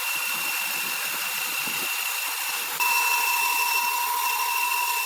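Sawmill saw running through timber with a steady high whine; about three seconds in, the sound gets louder and a lower second tone joins it.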